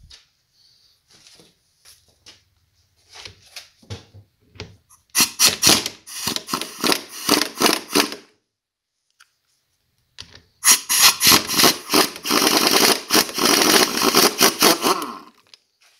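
Ingersoll Rand pneumatic impact wrench hammering on the reverse-threaded nut that holds the wet clutch on the crankshaft, in two bursts: one of about three seconds, then a longer one of about four and a half seconds. Light clicks of the tool being handled come before the first burst.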